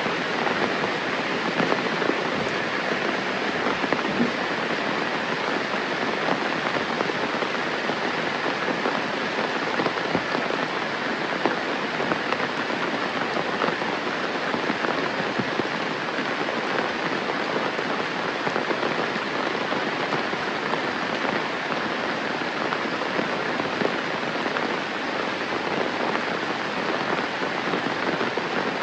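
Steady, fairly heavy rain falling, a dense even hiss of countless drops striking surfaces, with individual drop hits ticking through it.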